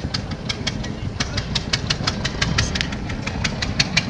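An engine running steadily, with a rapid, uneven clicking of about five clicks a second over a low rumble.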